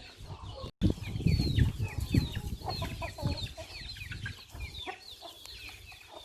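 A flock of country chickens calling: many short, high calls that fall in pitch, crowded together and thinning out after about five seconds, over a low rumble. The sound cuts out briefly just before one second in.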